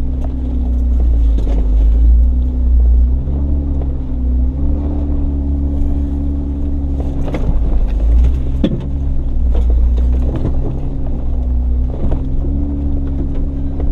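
Jeep Wrangler Unlimited's V6 engine running at low revs as it crawls up a rocky dirt trail, its pitch stepping up and down a little with the throttle. A few sharp knocks as the Jeep goes over bumps, the loudest about eight and a half seconds in.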